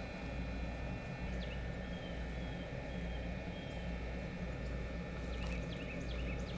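Steady low rumbling outdoor noise, with faint short bird chirps a couple of times.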